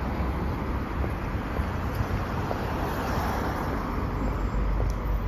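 Road traffic noise from cars driving past close by, a steady rush of tyres and engines that swells as one car passes about three seconds in.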